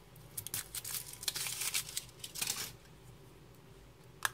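Foil wrapper of a Kinder Surprise egg crinkling and tearing as it is peeled off by hand, in a quick run of crackles during the first two and a half seconds. A single sharp click comes near the end.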